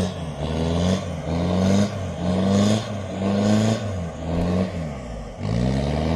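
Off-road 4x4's engine revved hard over and over, its pitch rising and falling about once a second as it pushes through.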